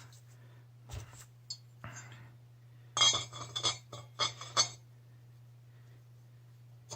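Light metallic clinks and taps of CVT clutch parts, the cam plate with its sliders and the sheave, being handled and fitted together. A few scattered taps come first, then a quick run of clinks from about three seconds in. A steady low hum runs underneath.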